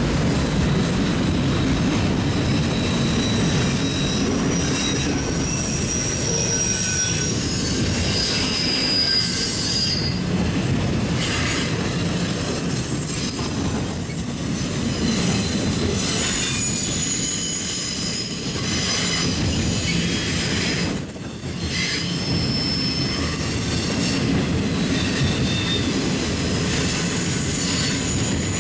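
Autorack freight cars rolling past: a steady rumble of steel wheels on rail, with thin, high-pitched wheel squeals that come and go throughout.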